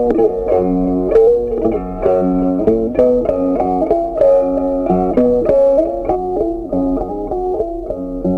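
Background music: an instrumental tune of plucked-string notes in a steady, busy melody.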